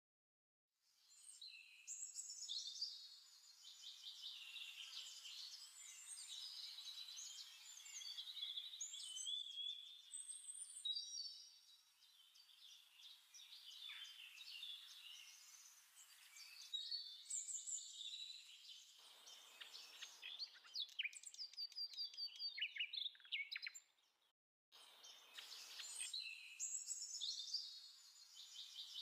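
Faint birdsong: a dense chorus of small birds chirping and twittering in quick high notes. The texture changes abruptly several times, with a brief drop-out late on, as if pieced together.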